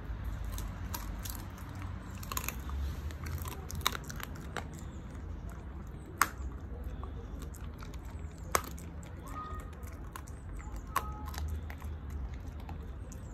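Keeshond puppy chewing and crunching crispy chicken feet: a run of irregular crisp crackles, with a few sharper, louder bone cracks about 4, 6, 8½ and 11 seconds in.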